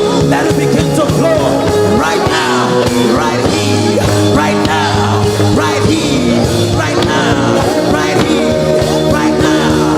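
Live worship music: held chords with a singing voice wavering over them.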